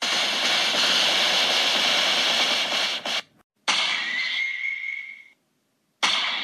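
Cartoon sound effects for a swing and a hit: a noisy rushing sound for about three seconds, then after a short gap a sudden hit with a high ringing tone that fades over about a second and a half, and another sudden hit near the end.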